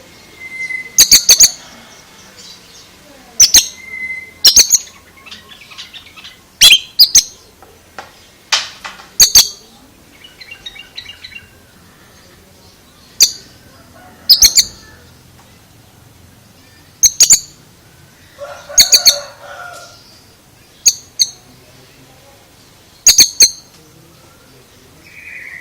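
Oriental magpie-robin (kacer) calling: short, sharp, loud high-pitched notes repeated every second or few seconds, often in quick pairs, with a softer buzzy call partway through and a lower, harsher call later on.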